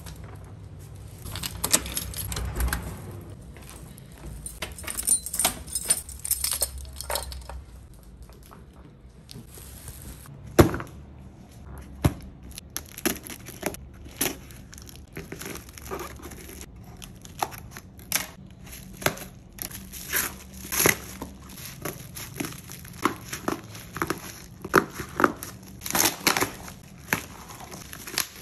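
A cardboard shipping box being opened by hand: packing tape cut with scissors and cardboard flaps torn and crinkled, in irregular rustles and sharp clicks. One sharp knock about ten seconds in is the loudest sound.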